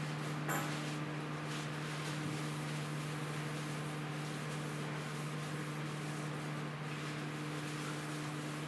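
Steady low electrical hum with an even hiss behind it, and a faint tick about half a second in.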